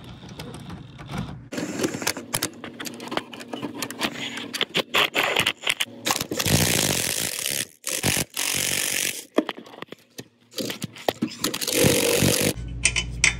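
A ratchet wrench on the 15 mm nuts that hold a new catalytic converter to its studs, clicking in bursts as the nuts are run down and tightened in turn, with metal clinks and scrapes between. Two longer stretches of fast, continuous ratcheting come about halfway through and again near the end.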